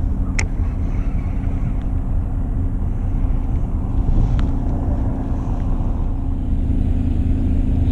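Fishing boat's engine running steadily with a low hum, with two short sharp clicks, one about half a second in and another about four and a half seconds in.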